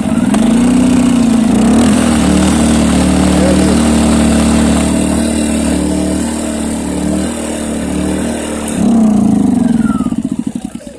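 Champion 2000-watt inverter generator's small four-stroke engine catching on the pull-start and running steadily, now that a new ignition module has restored its spark. Near the end it speeds up briefly, then slows and dies away.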